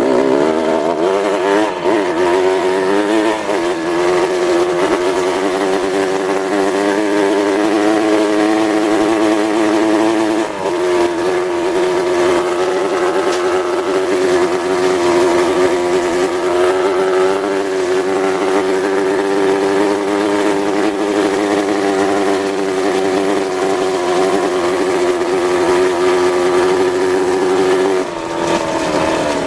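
Motorcycle engine running under load at a steady cruising speed, its pitch rising and falling over the first few seconds, then holding level. There is a brief dip about a third of the way in, and the engine note drops near the end.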